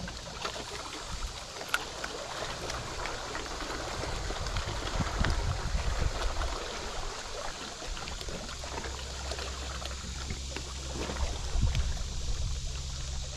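Water lapping and trickling against a small fishing boat's hull, over a low steady hum.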